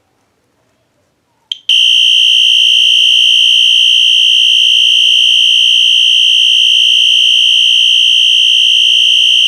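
Wheelock Exceeder electronic fire alarm horn sounding in continuous mode: one loud, unbroken high-pitched tone rather than a code 3 pattern. It comes on after a short blip about a second and a half in.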